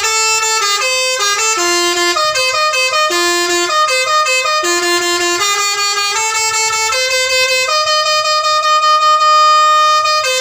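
Telolet bus horn playing a quick tune of changing musical notes, ending on one long held note of nearly three seconds.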